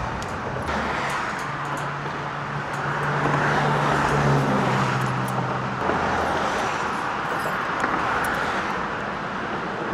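Road traffic running steadily past. A vehicle goes by, its engine hum rising and fading over about four seconds in the middle.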